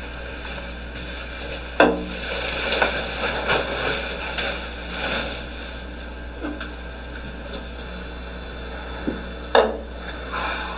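Knocks, scuffs and rustles of a person moving about at an office desk and handling a cardboard box, played back through a small speaker over a steady low hum: one sharp knock about two seconds in, a few seconds of shuffling, and another knock near the end.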